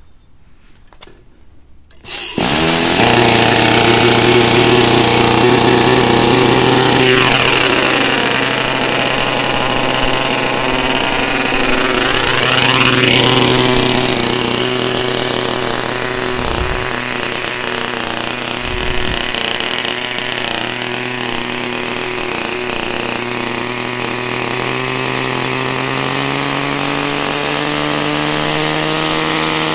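Small glow-fuel model engine of a 1980 GMP Cricket RC helicopter, started with a hand-held electric starter. It comes in suddenly about two seconds in and then runs steadily at a low setting. Near the end its pitch rises steadily as the throttle is opened and the rotor spools up.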